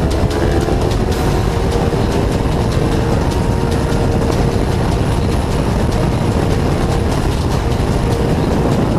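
Heavy wind noise on a helmet-mounted camera riding a motorcycle at road speed, with the bike's engine running underneath. The engine note climbs a little in the first couple of seconds, then holds steady.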